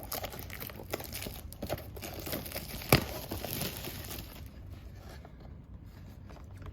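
Packaging of a trading-card blaster box crinkling and tearing as it is opened by hand, with one sharp snap about three seconds in; the crackling dies down after about four and a half seconds.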